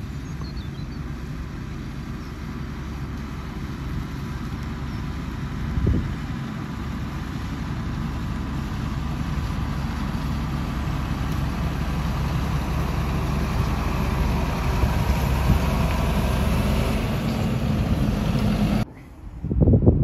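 Fendt 720 Vario tractor's six-cylinder diesel engine running steadily under load while pulling a plough, growing louder as the tractor draws near, with a brief knock about six seconds in. Near the end the engine sound cuts off and wind buffets the microphone.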